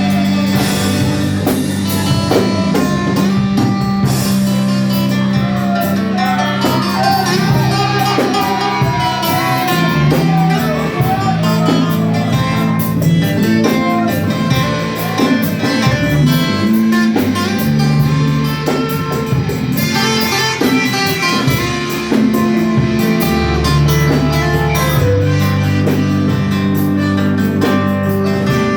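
Band music with electric guitar, a bass line and drum kit, with a singing voice over it.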